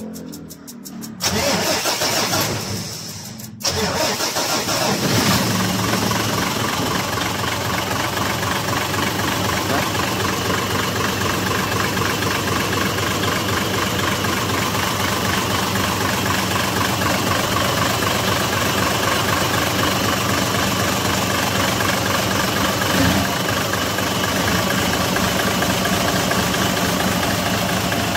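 Mitsubishi Fuso 6M70 six-cylinder diesel engine being started: it turns over about a second in, catches within a few seconds, then runs steadily at idle. It starts readily now, after work on a faulty injector that had caused hard starting.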